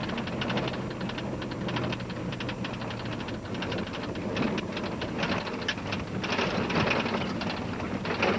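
Pickup truck driving on a snowy road with tire chains on: a low engine hum under a steady rapid clatter of the chains and rattling of the truck.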